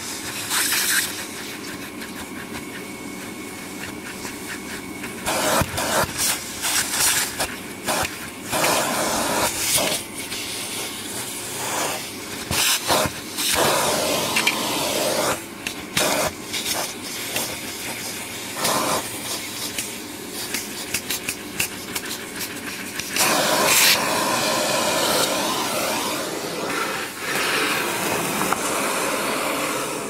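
Vacuum cleaner running, its hose nozzle sucking caked dust off a vacuum filter tray; the rush of air swells and changes repeatedly as the nozzle is pressed to and drawn across the filter.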